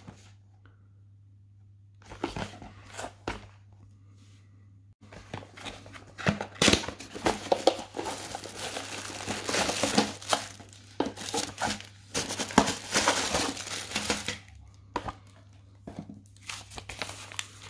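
Cardboard box being opened, a few light clicks of the flaps, then several seconds of plastic bags and cardboard crinkling and rustling as the filter parts are pulled out of the packaging.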